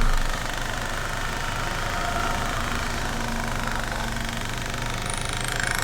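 2022 Hyundai Kona running in gear on a lift with its AWD drivetrain turning: a steady engine and driveline hum as the rear differential vibrates hard, a sign of a drive shaft or rear differential problem.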